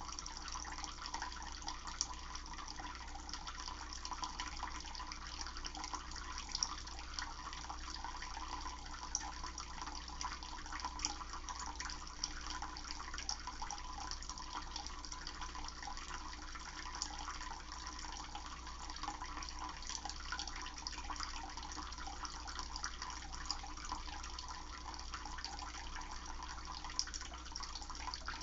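Water running steadily, an even rushing noise with small splashes scattered through it, over a constant low hum.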